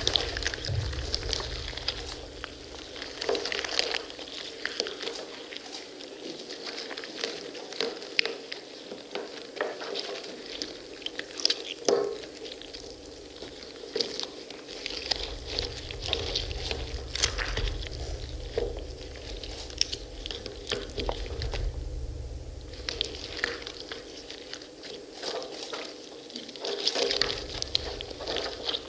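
Pomegranates being crushed and torn apart by hands: wet squishing with a dense crackle of seeds bursting and skin tearing. A low rumble comes in about halfway and cuts off suddenly near the end.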